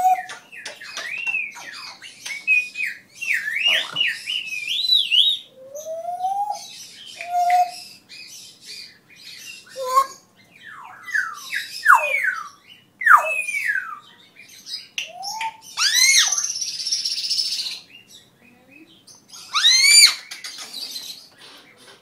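African grey parrot whistling and calling: a busy string of short whistles sliding up and down in pitch, with a harsher, rasping squawk about three-quarters of the way through and a rising squawk near the end.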